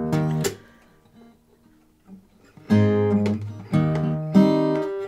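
Acoustic guitar chords strummed while the player searches for the song's key. One chord rings out and fades at the start. After a pause of about two seconds, three louder strummed chords come about a second apart.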